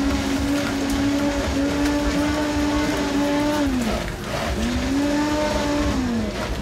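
Countertop blender running with a steady motor whine as it blends a pink-red drink. About four seconds in, the pitch falls as the motor slows, then climbs back up as it speeds up again, and near the end it starts to fall once more.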